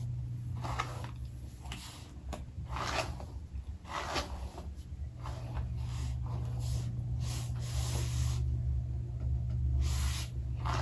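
Hands handling hair and a wig: irregular soft rustling and brushing strokes, about ten of them, over a steady low hum.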